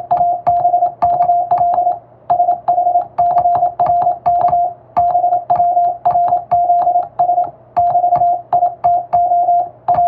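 Hand-sent English Morse code: a single steady mid-pitched tone keyed on and off by a telegraph key in quick dots and dashes, with a short click as each element starts. There are longer pauses every two to three seconds between groups.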